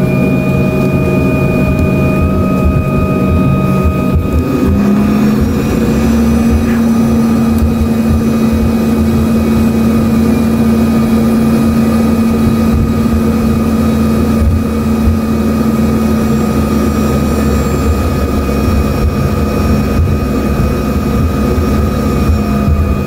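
The Embraer 145's rear-mounted Rolls-Royce AE 3007 turbofans running, heard from inside the cabin as a loud, steady whine over a low rumble. About five seconds in, the engine tone shifts and a strong steady hum sets in and holds.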